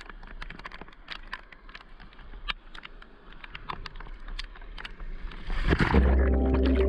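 Scattered sharp clicks and knocks of dive gear being handled in an inflatable dinghy, then a splash near the end as the camera goes into the water, after which music with steady held tones comes in.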